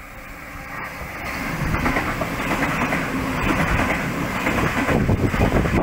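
Sydney Trains double-deck electric train running alongside the platform: a rumble with wheel-on-rail clatter that grows louder over the first two seconds, then holds steady as the carriages go by close up.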